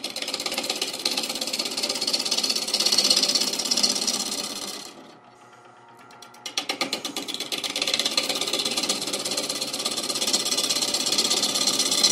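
Bowl gouge cutting a green-wood bowl blank spinning on a wood lathe: a rapid, even rasping chatter as the edge takes off shavings. It stops for about a second and a half midway, then the cut starts again.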